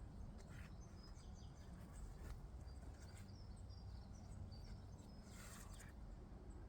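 Faint outdoor ambience: small birds give short high chirps in the background over a low wind rumble, with a few soft rustles.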